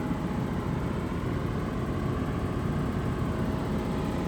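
John Deere 200C LC excavator's diesel engine idling steadily, a constant low rumble. The seller says it may have an injector giving it a little trouble but that it runs okay.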